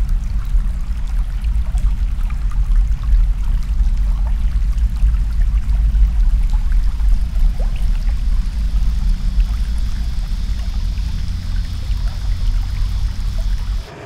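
Creek water flowing and trickling through a corrugated metal flood culvert, a steady rush with a heavy low rumble under it and small scattered drips. It cuts off abruptly just before the end.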